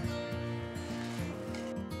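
Background instrumental music, a run of steady notes changing every fraction of a second.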